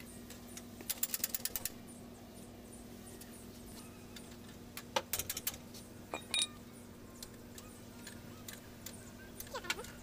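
Metal-on-metal clicks and clinks of a spanner working the hydraulic line fittings on a truck's power steering box: a quick run of clicks about a second in and another cluster around five seconds, over a faint steady hum.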